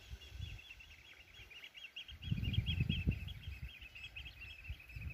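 Many small birds chirping and twittering without pause in a dense chorus. A low rumble rises about two seconds in and is briefly louder than the birds.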